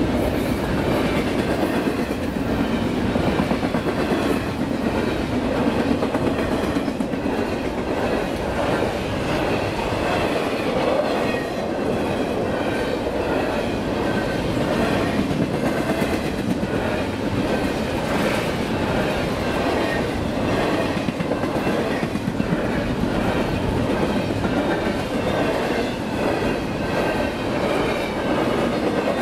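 Double-stack intermodal well cars loaded with shipping containers rolling steadily past on the rails. Their wheels make a continuous rumble with a stream of clicks.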